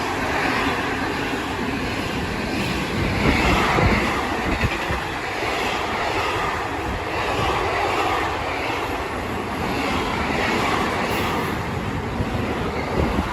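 Train running past close by, a loud steady rushing noise with no breaks.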